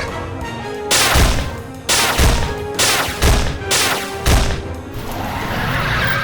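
Background music with a run of loud, sharp crashing hits, about one or two a second, which then give way to a softer wash near the end.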